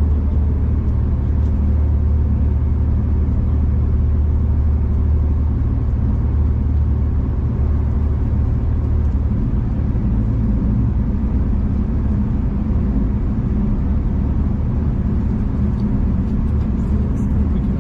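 V/Line passenger train running, heard from inside the carriage: a steady low rumble of the train under way, easing slightly about halfway through.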